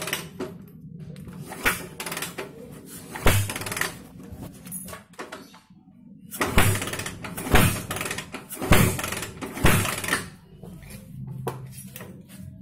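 Socket wrench working the bolts of a motorcycle engine's aluminium crankcase cover: metal clicks and knocks of the tool against the bolts, with several sharp clinks between about six and ten seconds in, over a steady low hum.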